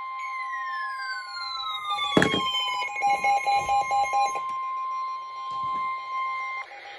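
NOAA Weather Radio's steady 1050 Hz warning alarm tone, sounding ahead of a severe thunderstorm warning message, and cutting off shortly before the end. Over it a falling tone glides down during the first few seconds. A sharp thump comes about two seconds in, followed by a pulsing tone.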